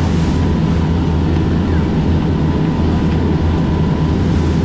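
Ferry engines running steadily at speed, a deep even rumble with a faint steady whine, mixed with the rush of water churning in the wake.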